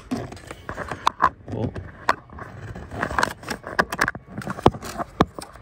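Hacksaw blade scraping and clicking against metal in short, irregular strokes as it starts cutting through a car's air-con condenser pipe.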